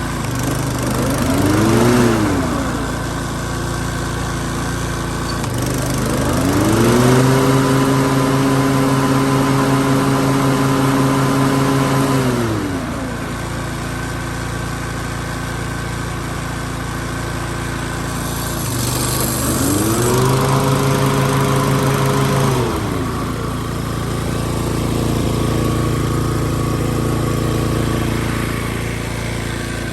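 Toro Timemaster mower's 223cc engine running, with a newly replaced blade brake cable being tested for blade engagement. Three times it speeds up and holds, then drops back: briefly about two seconds in, for about six seconds from about six seconds in, and for about four seconds from about nineteen seconds in.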